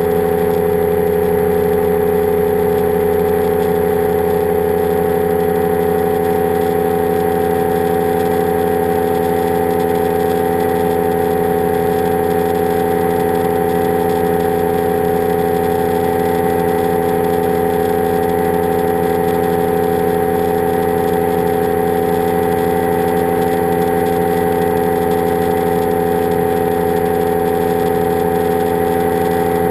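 Powered parachute's engine and propeller running steadily in cruising flight: a constant drone that holds one pitch throughout.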